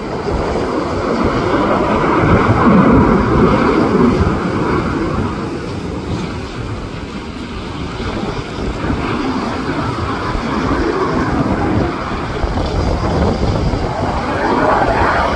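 A military fighter jet's engine noise, a loud continuous rumble that swells a couple of seconds in, eases off midway and builds again near the end as the jet manoeuvres overhead. Wind buffets the microphone throughout.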